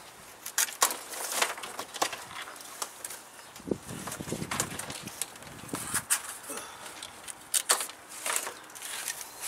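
Plastic packing straps being pulled off a large cardboard shipping box: an irregular run of sharp clicks, snaps and crinkles, with a lower rubbing scrape of cardboard from about three and a half to six seconds in.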